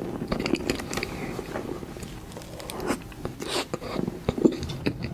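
Close-miked chewing of a mouthful of soft cream cake: wet, sticky mouth sounds with many small clicks.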